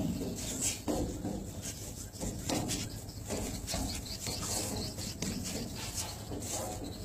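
Footwork and movement of a man shadow boxing: short scuffs and rubbing sounds at an uneven pace, a few each second, over a steady low rumble.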